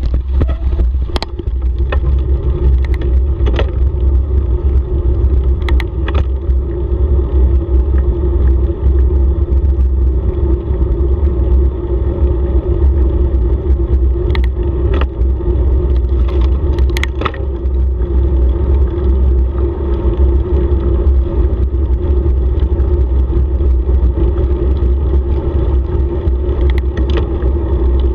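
Heavy, steady wind buffeting on the microphone of a bicycle speeding downhill, over a continuous hum from the tyres rolling on asphalt. Occasional sharp clicks and rattles come from bumps in the road.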